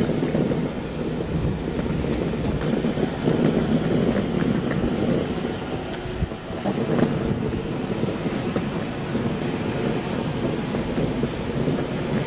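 Wind buffeting the microphone: a steady, fluctuating low rumble with no clear tones.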